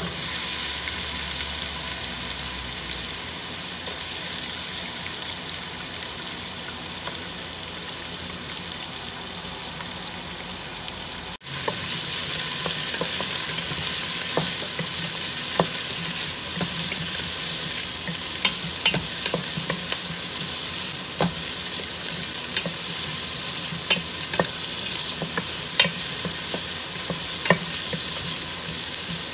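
Diced onion and ginger sizzling in a little hot oil in a stainless steel stockpot, the sizzle starting sharply as they go in. From about twelve seconds in, a wooden spoon stirring them taps and clicks against the pot.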